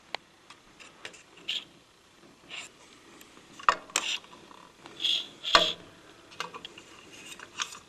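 Quiet handling noise: scattered light clicks, taps and brief rubbing sounds, with a few sharper clicks in the middle.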